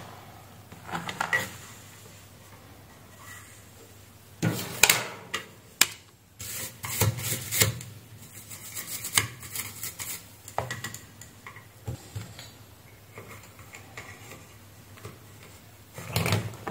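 Irregular rubbing and scraping strokes as a freshly soldered circuit board is scrubbed to clear flux residue from around a new regulator chip.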